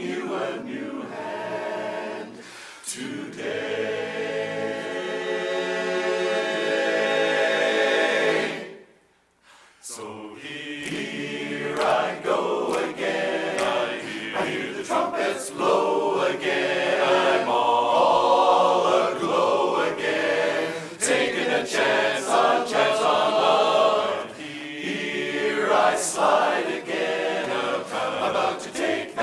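Men's barbershop chorus singing a cappella in close harmony. A long held chord cuts off sharply about eight and a half seconds in, a second of silence follows, then the chorus comes back in.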